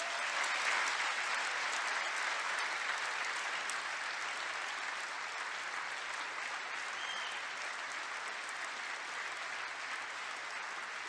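A large audience applauding in a sustained ovation that eases off slightly toward the end.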